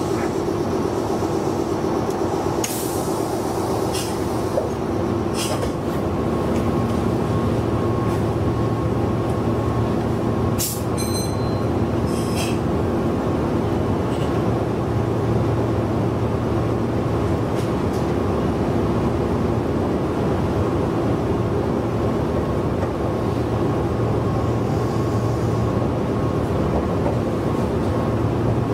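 Meitetsu 6800 series electric train running, heard from on board: a steady hum and rumble of motors and wheels on rail, with a few sharp clicks scattered through the first half.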